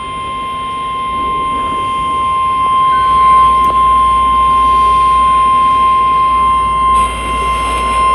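NOAA Weather Radio 1050 Hz warning alarm tone: a single loud, steady, high-pitched tone played through a weather radio's speaker. It marks a warning-level alert, here a special marine warning.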